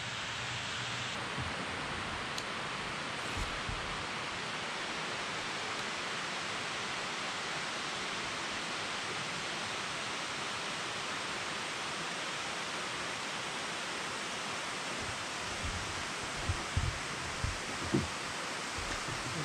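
Steady rushing outdoor noise, even and unbroken, with a few short low thumps near the end.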